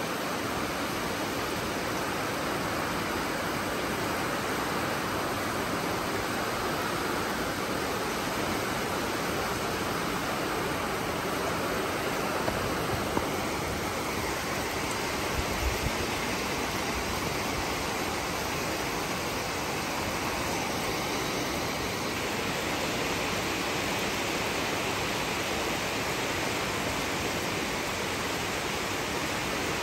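Heavy rain falling steadily, an even rushing hiss. A few brief low thumps stand out around the middle.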